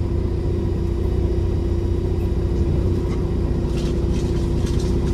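Peterbilt 389 semi truck's diesel engine idling steadily, heard from inside the cab.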